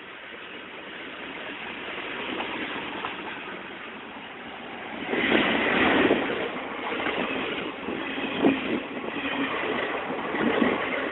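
A WDM3A diesel locomotive approaches and passes close by: the sound builds steadily, then jumps suddenly to its loudest about five seconds in. Passenger coaches follow, rattling past with occasional wheel knocks over the rail joints.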